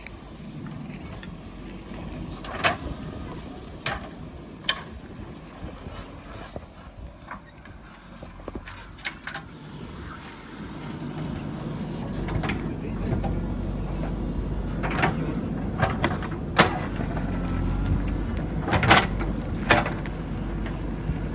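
JCB 3DX backhoe loader's diesel engine running under work, growing louder about halfway through, with sharp clanks and knocks from the bucket and arm working soil and stones, the loudest late on.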